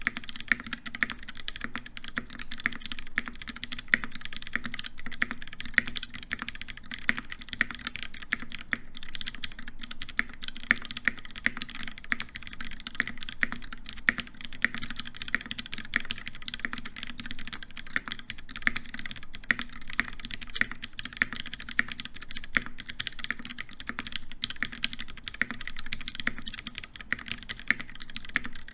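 Steady, fast typing on a custom mechanical keyboard with lubed Hyperglide MX Black linear switches in a brass plate, under GMK ASCII doubleshot ABS keycaps: a dense, uneven stream of key clacks with no pauses.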